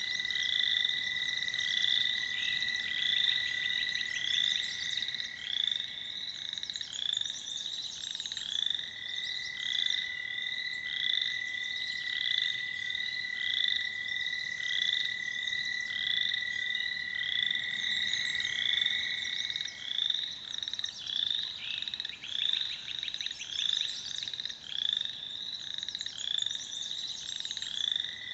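Frog chorus at a pond: the long, steady, high trill of American toads, breaking off briefly about eight seconds in, stopping about two-thirds of the way through and starting again near the end, over a constant run of short repeated calls and fast pulsed trills from other frogs.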